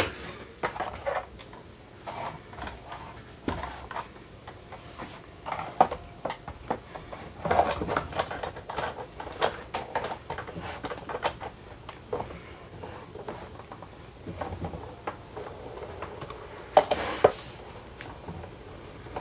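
Sizzix manual die-cutting machine being loaded and hand-cranked: scattered clicks and clacks of its plastic cutting pads and platform as the die sandwich is set in place and fed through the rollers, with a louder clatter near the end.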